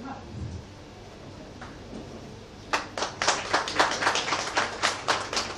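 A small audience clapping, starting about halfway through, with separate claps easy to pick out.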